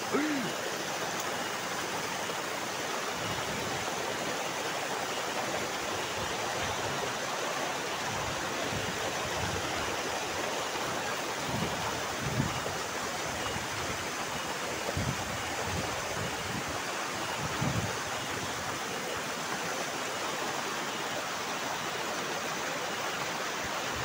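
Steady rushing of a tall waterfall pouring into a rocky pool, an even roar of falling water. A few brief low thumps come through it, the sharpest about halfway.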